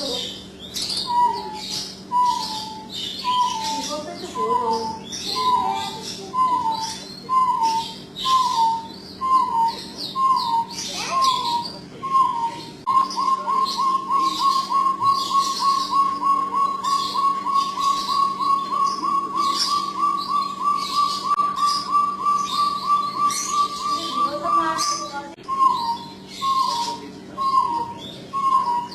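Jungle bush quail calling: short, downslurred whistled notes repeated about one and a half times a second, breaking about halfway in into a long rapid run of notes that rises slightly in pitch for about twelve seconds, then falling back to spaced notes.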